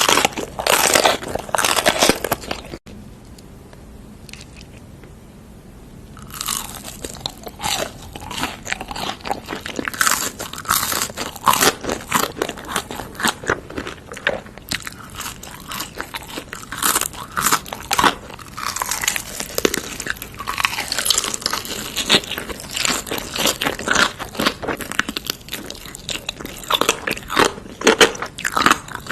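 Close-miked crunchy biting and chewing of food, a steady run of crisp crunches with a quieter lull of a few seconds near the start.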